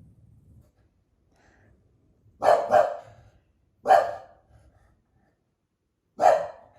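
English bulldog barking: a quick double bark about two and a half seconds in, a single bark near four seconds and another near the end. She is barking in response to noise in the distance.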